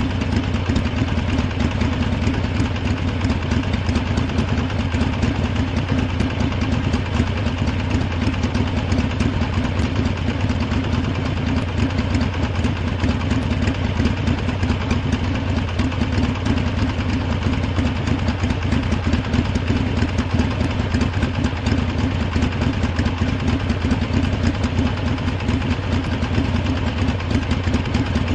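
Harley-Davidson motorcycle V-twin engine idling steadily, with an even, fast low beat and no revving.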